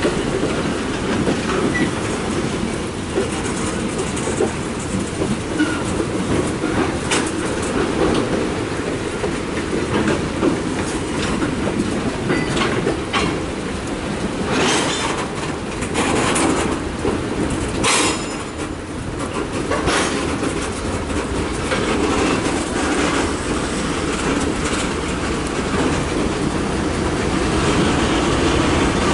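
Freight train tank cars rolling past: a steady rumble of steel wheels on rail with clickety-clack over the rail joints. A cluster of sharp metallic clicks and clanks comes about halfway through.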